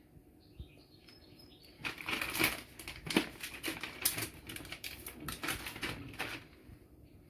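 Irregular rustling and crinkling of plastic food wrapping being handled as cheese slices are taken out and laid on bread. It starts about two seconds in and stops about a second before the end.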